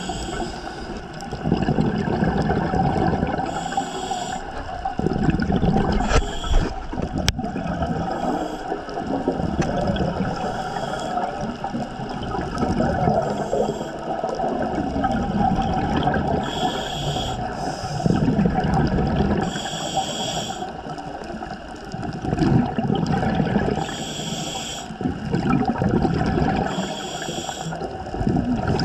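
Scuba regulator breathing heard underwater. A short hiss on each inhale and a gurgling rush of exhaled bubbles repeat every two to four seconds.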